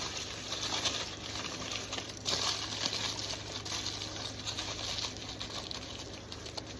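Aluminum foil crinkling and crackling as it is folded closed around a cabbage boil, with a sharper burst of crinkling about two seconds in.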